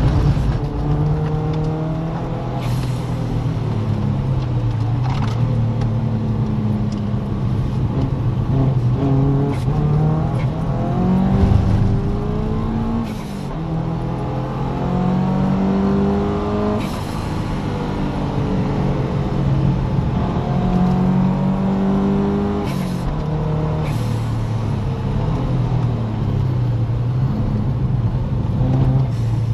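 Subaru Impreza's engine heard from inside the car under hard track driving, repeatedly revving up through the gears and dropping back under braking. Several short, sharp cracks cut in along the way.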